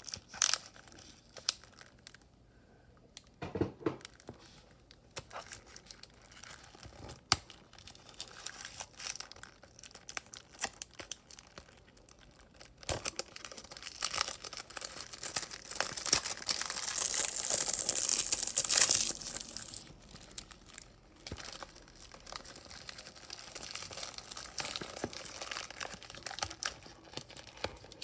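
Clear plastic shrink wrap being torn and peeled off a Blu-ray case: crinkling and tearing with scattered clicks from handling the case. The crinkling grows louder and denser about halfway through for some six seconds, then drops back to occasional rustles.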